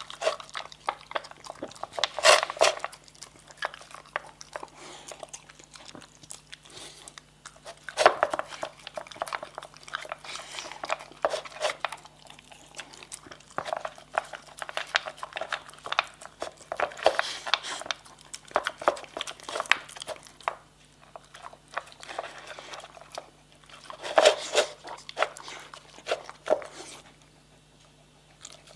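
Dog chewing and crunching on something hard, in irregular bursts of sharp crunches with short pauses between.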